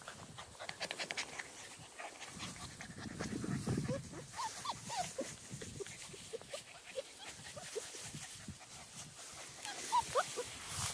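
Small Munsterlander puppies whimpering: short, high squeaks that slide up and down in pitch, scattered through the second half with a cluster near the end. Rustling and light clicks come in the first seconds.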